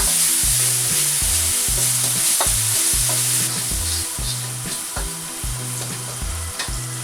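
Onion, garlic and seasonings sizzling in hot oil in a wok while being stirred, with a few sharp clicks from the stirring utensil.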